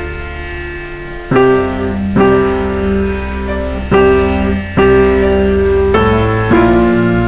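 Background piano music: slow notes struck about once a second over a low sustained bass.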